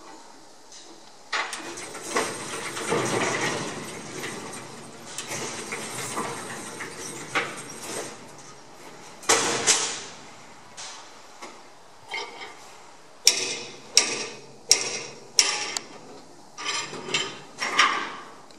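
Metal clanking and knocking from the rail gear of a tram-works transfer table as workers handle it, with a quick run of four sharp metallic knocks about two-thirds of the way through.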